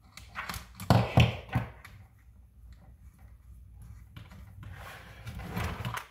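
A few sharp clicks and taps of a screwdriver and small metal RC suspension parts being handled while a grub screw is worked in, loudest about a second in, followed by quieter handling and rustling.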